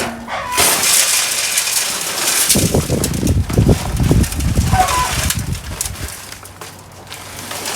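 Scraping and hissing from hand work on a fresh concrete patch at a slab edge, with heavier rubbing strokes in the middle.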